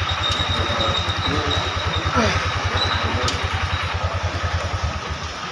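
A vehicle engine idling close by: a fast, even low chugging that stops about four and a half seconds in.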